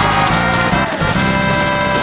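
Upbeat background music with brass-like held notes over a steady beat.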